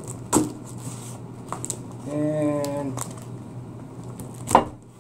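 Scissors snipping and working through packing tape on a cardboard box: scattered clicks and scrapes, with a sharp snap a little after four and a half seconds. A man's short hum sounds about two seconds in.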